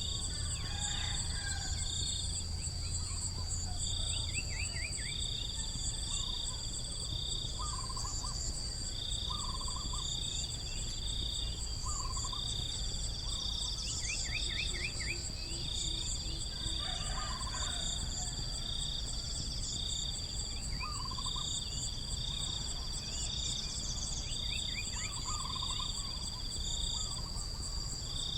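Tropical forest insect chorus: a steady high-pitched drone with a pulsed chirping call repeating in short bouts, and short trills and call series from other animals recurring throughout.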